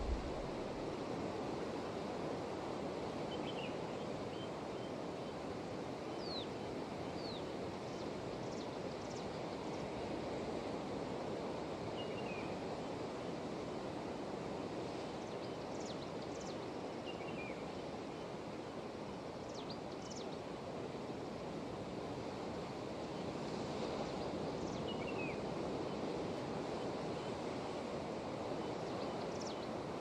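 Ocean surf washing steadily over rocks at the foot of a cliff. Short, high, downward-sliding bird chirps come every few seconds, and a brief low thump falls right at the start.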